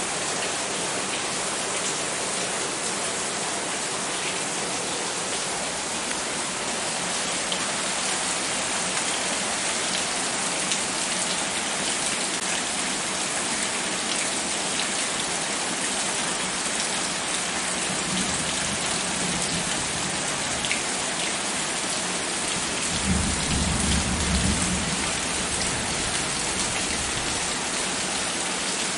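Heavy rain pouring down steadily, splashing on wet ground and puddles. A brief low rumble rises under it about three-quarters of the way through.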